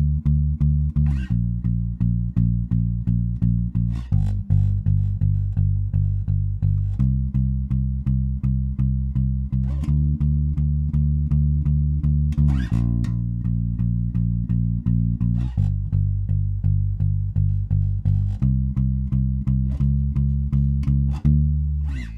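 Electric bass played solo in steady, even notes, picked with the index finger alone. Each note is fretted with one finger while the other fretting fingers rest lightly on the string behind it, giving a partly muted, damped note. The pitch changes every three seconds or so, and the playing stops near the end.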